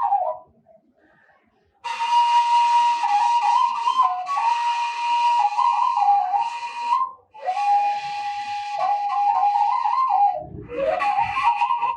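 Washint, the Ethiopian end-blown bamboo flute, playing a breathy solo melody of held and ornamented notes. It falls silent briefly near the start, then comes in in phrases broken by short pauses for breath.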